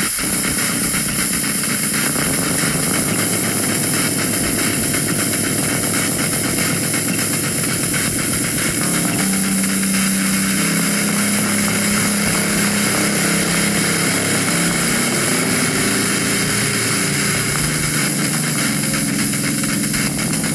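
Experimental electronic music made on iPad synthesizer apps: a dense, steady wash of noise with several held tones, and a new low tone coming in about nine seconds in.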